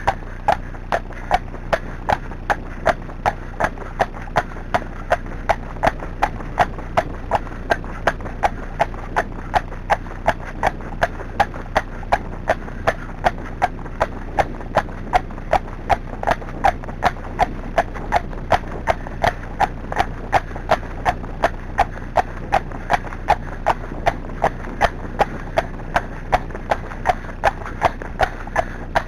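Friesian horse trotting on a tarmac lane: an even, steady clip-clop of hooves, about three beats a second.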